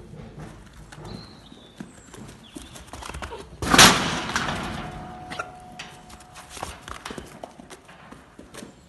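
Welsh Mountain ram trotting around a pen, its hooves clicking and thudding on the straw-and-muck bedding. There is one loud thump about four seconds in as the ram bumps past close against the metal hurdles.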